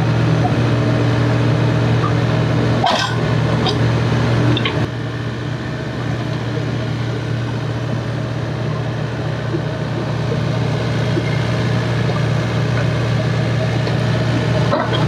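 Diesel engine of an excavator running steadily with a low hum, with two sharp knocks about three and four and a half seconds in.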